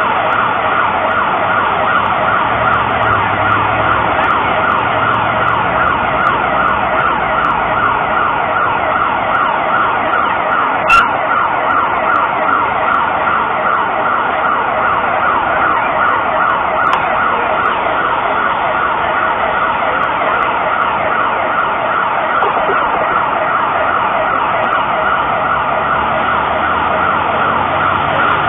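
Mexico City's seismic alert (SASMEX) siren sounding from public loudspeakers: a loud, continuous warbling tone of fast repeating sweeps, warning that an earthquake is on its way. A brief click comes about 11 seconds in.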